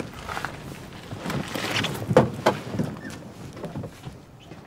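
Clothing rustling and a few soft knocks and clicks from someone moving about inside a car, over a faint low hum.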